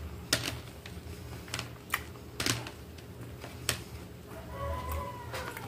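Metal spoon and fork clicking and scraping against a plastic plate as food is scooped up, in sharp separate clicks a few times a second, with gaps between.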